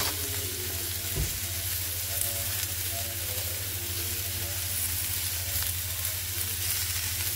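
Tomatoes, onions, cashews and garlic frying in a nonstick pan with a steady sizzle, cooking down with salt until the tomatoes soften. A low steady hum runs underneath, and there is one soft knock about a second in.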